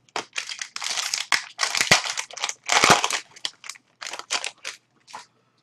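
A shiny foil trading-card pack wrapper crinkling and tearing as it is ripped open by hand. It makes dense crackly rustling for about three seconds, then a few short crinkles.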